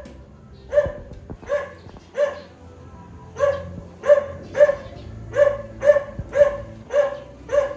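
An animal calling over and over in short, loud, pitched calls, about two a second, a little irregular.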